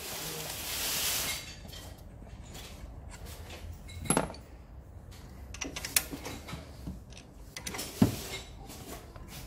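Scattered clinks and knocks of tools and parts being handled in a car's engine bay, with a short hissing rustle in the first second. Three sharp knocks come about 4, 6 and 8 seconds in, the last the loudest.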